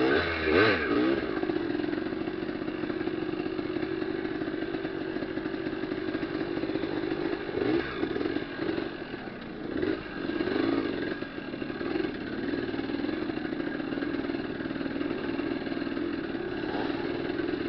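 Trail motorcycle engine running under way, its revs rising and falling briefly near the start and again around the middle as the bike rides over rough ground.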